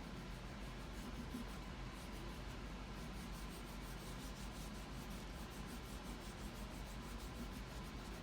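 Wax crayon rubbed back and forth over a wooden popsicle stick in quick, faint, continuous strokes, colouring it.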